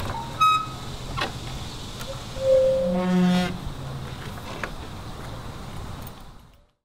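Wooden gate door pushed open: a short high squeak, a sharp knock, then a loud low creak of the hinges lasting about half a second around three seconds in. A steady background hum under it fades out near the end.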